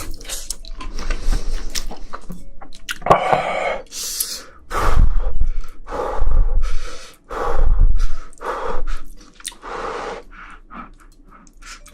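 Close-miked eating sounds: chewing and crunching, with breaths and sharp clicks. The loudest bites fall from about five to eight seconds in, and it grows quieter after that.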